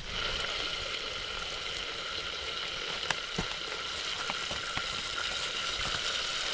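Beef stir-frying in a pan: a steady sizzle with a few scattered pops.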